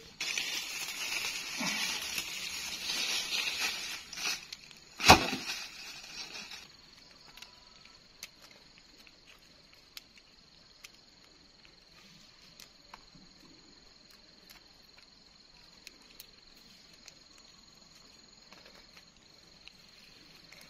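Rustling and crackling of vegetation and wooden poles being handled, with one sharp knock about five seconds in. It then drops to faint small ticks over a steady high-pitched insect drone.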